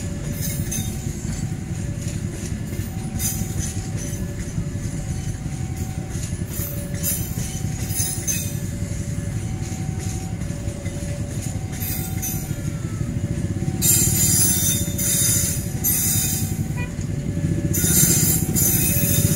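Passenger train coaches rolling past at a level crossing with a steady low rumble, growing louder with bursts of wheel-on-rail clatter and hiss about two-thirds of the way in. Over it the crossing's warning alarm sounds an alternating two-tone chime, switching tone about once a second.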